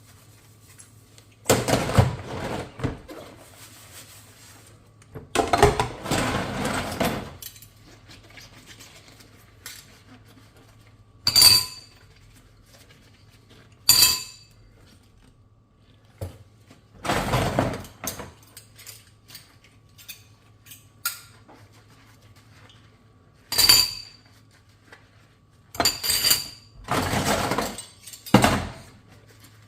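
Dishes being washed by hand: several stretches of water swishing, a second or two each, alternating with four sharp, ringing clinks of dishes knocking together.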